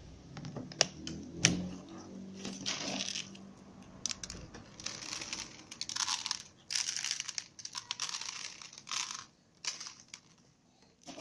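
Cats and kittens eating together from a shared plastic tray: quick, irregular chewing clicks and crackly crunching bursts, thickest in the second half, with two sharp clicks about a second in.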